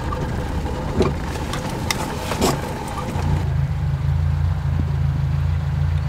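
A small Renault car's engine running, heard from inside the cabin, with the windshield wipers sweeping about every second and a half. About halfway through, the sound changes to a steadier, deeper engine hum.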